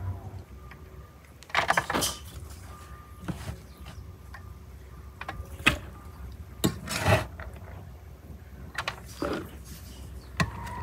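Metal slotted spatula clinking and scraping against a metal pan and tray as cooked rice is scooped up and spooned into a whole lamb's cavity. There are half a dozen short, sharp clatters spread out, the busiest a second and a half to two seconds in and around seven seconds, over a low steady background hum.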